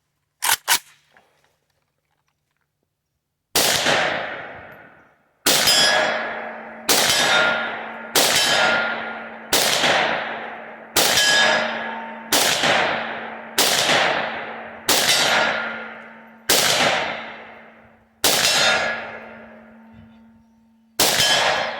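Century Arms VSKA, an AKM-pattern 7.62×39mm rifle, fired semi-automatically: twelve shots about one to two seconds apart, each ringing out for a second or more. A steady low ringing tone runs under the later shots, and two light metallic clicks come about half a second in, before the firing starts.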